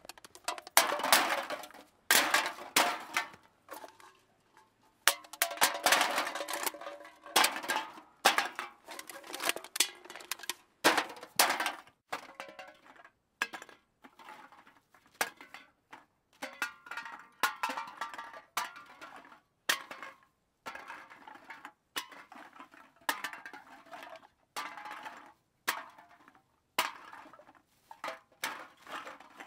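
Many short clinking and clattering impacts of hard objects knocking and dropping. They come in quick runs, broken by brief silent pauses.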